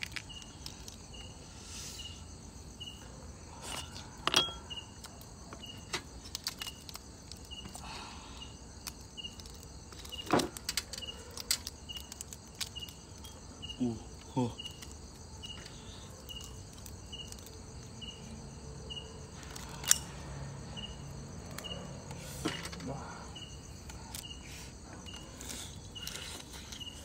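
A short high chirp repeating evenly, a little more than once a second, typical of a cricket, with scattered sharp clicks and knocks throughout.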